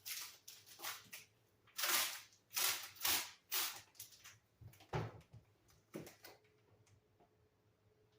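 Simple Mat adhesive tile-setting mat being pulled along the wall: a series of short, irregular rustling scrapes that thin out after about six seconds.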